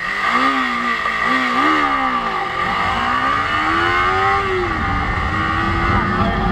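Sport motorcycle engine accelerating through the gears: its pitch climbs and drops twice in quick succession, then climbs in a longer pull and drops at a shift about five seconds in before running more steadily. Wind noise rushes over the microphone as speed builds.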